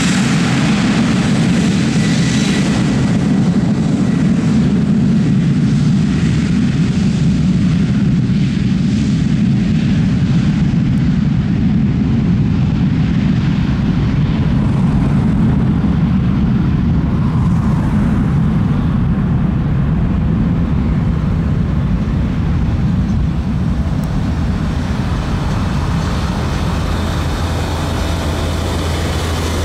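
Boeing 737-800 freighter's CFM56-7B turbofan engines, a loud steady jet rumble as the aircraft rolls away down the runway. The higher hiss thins out from about halfway through as it draws away.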